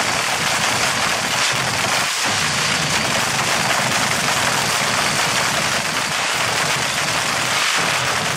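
Nitromethane-fuelled front-engine dragster engine running in place: a loud, steady, harsh rattle from its open exhaust that does not let up.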